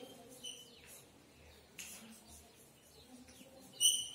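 Chalk writing on a blackboard: faint scratchy strokes with short, high squeaks of the chalk, the loudest squeak near the end.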